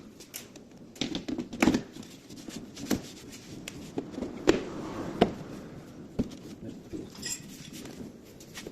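Irregular metallic clicks, clinks and light knocks of parts and hand tools being handled, with a few sharper knocks.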